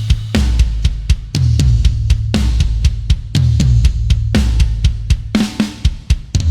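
Sampled death metal drum kit from the EZdrummer 3 Death Metal EZX library playing a groove: kick, snare and hi-hat hits, with a big accent and cymbal crash about once a second. Low sustained notes run underneath.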